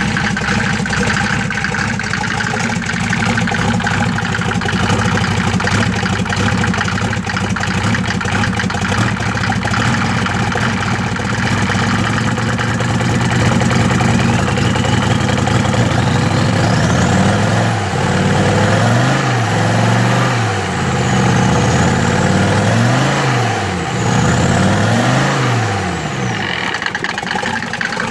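Mercedes OM602 five-cylinder diesel idling steadily, which the owner calls a rough idle. After about sixteen seconds the engine is revved up and let fall back several times, each blip a second or two long, then settles back to idle near the end.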